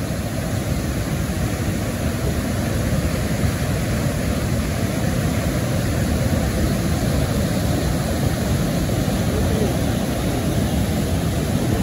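Steady rush of the Niagara River's rapids, white water pouring over rocks, a loud, even noise with no breaks.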